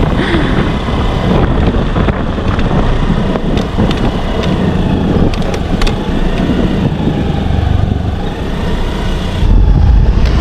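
A motorcycle being ridden along a road: steady engine and road noise, with the low rumble getting louder near the end.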